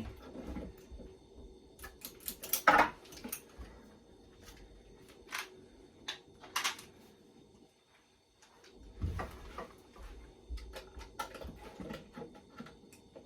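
A few scattered sharp clicks and knocks from an air stapler being handled against plywood box parts. The stapler does not fire because the air pressure to it is turned off.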